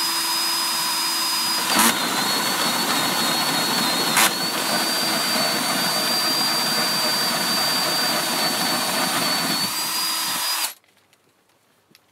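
Bosch GSB 14.4 VE-2 cordless 14.4 V drill running a hole saw through the shed's timber wall: a steady motor whine with cutting noise. Two sharp knocks come about two and four seconds in, and between them the whine dips lower as the saw bites; the drill stops near the end.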